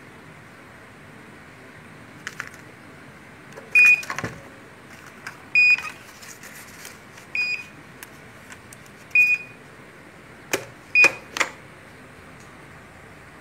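Thermal receipt printer beeping short, high beeps about every two seconds while its cover is open and the paper roll is handled, typical of a cover-open or paper alarm. Paper rustles and sharp plastic clicks as the lid is snapped shut near the end.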